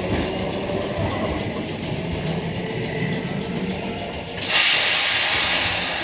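Randen Mobo 2001-series tram car pulling slowly into the platform with a low running rumble, then a sudden loud hiss of released compressed air about four and a half seconds in, fading over a second or so as the car comes to a stop.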